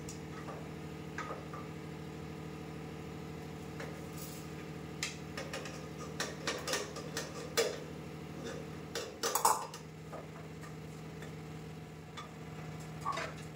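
A spatula scraping and knocking against the inside of a metal pressure cooker while vegetables are stirred, with scattered short clicks over a steady low hum.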